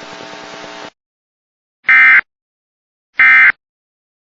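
Emergency Alert System end-of-message data tones: two short, loud bursts of buzzy two-tone digital data about a second and a half apart, closing the alert. Before them a faint hiss with a steady hum cuts off just under a second in.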